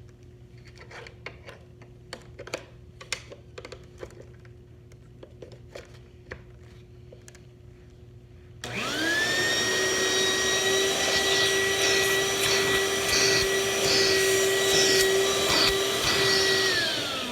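Light scattered clicks, then about halfway in a 2004 Hoover bagless cyclonic quick broom's motor switches on, its whine rising to a steady pitch and running evenly before winding down near the end. This is a suction test, and the suction is minimal.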